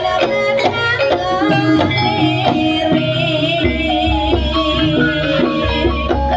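Javanese gamelan music accompanying an ebeg dance: struck bronze pot gongs and metallophones play a running melody over hand-drum strokes, with a wavering high held note near the middle and deeper gong-like low notes coming in after about three and a half seconds.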